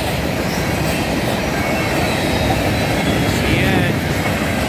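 Freight cars of a passing manifest train rolling by, a steady rumble of steel wheels on the rails.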